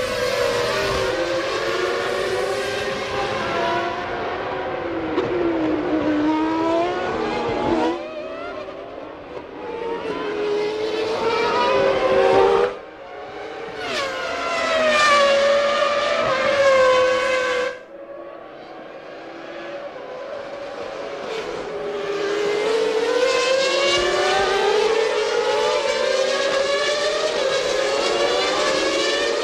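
Several 1997 Formula One cars at racing speed, their engines revving high and changing pitch as they accelerate, shift and pass. The sound changes abruptly three times between shots.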